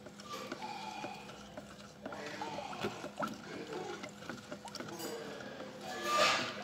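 Thick emulsion wall paint being stirred in a bucket with a stick: soft sloshing with small knocks of the stick against the bucket, and a louder swish about six seconds in. Faint voices in the background.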